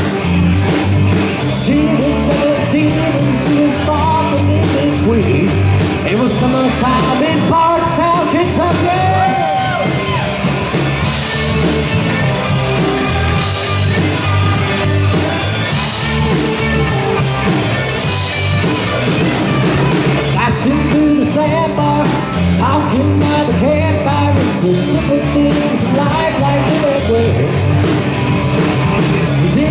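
Live rock band playing: drums and bass keeping a steady beat under electric guitar and singing.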